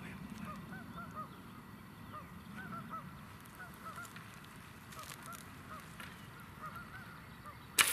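Birds calling over and over in the background, short arching calls. Near the end, a sudden sharp snap as the recurve bow is shot.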